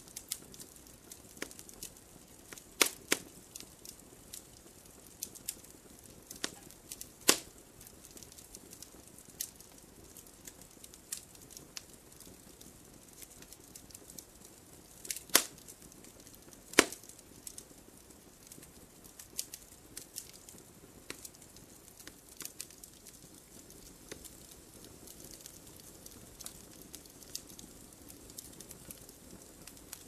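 Wood campfire crackling: irregular sharp pops and snaps over a faint steady hiss, with a few much louder pops scattered through.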